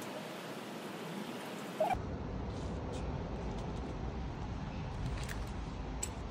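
Steady background room noise and hiss with a short blip about two seconds in. There the background turns deeper and rumbling, and a few faint clicks follow.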